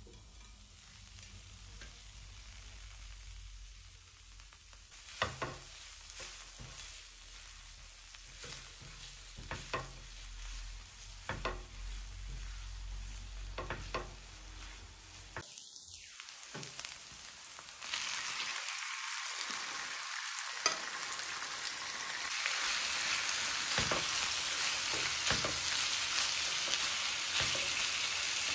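Food frying and sizzling on a hot tawa, with scattered knocks and scrapes of a utensil stirring it against the pan. Around two-thirds of the way in, the sizzle suddenly grows much louder and brighter and stays that way.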